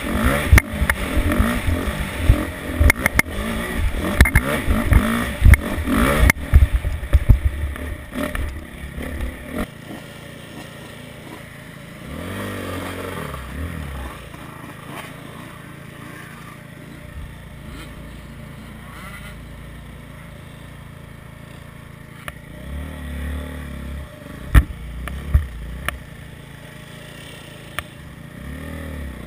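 Motocross bike ridden hard over rough dirt, its engine revving with knocks and jolts, for the first several seconds; the bike then settles to a quiet idle while other dirt bikes rev up nearby twice, near the middle and a few seconds before the end, with a couple of sharp knocks.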